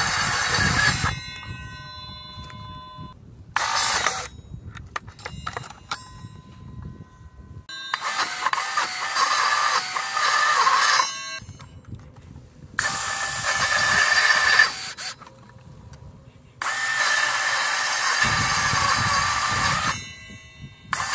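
Homemade cordless cutter built from an old angle grinder, cutting tree branches. Its motor runs in five bursts with short pauses between, the longest about three seconds, and its whine wavers while the blade is in the wood.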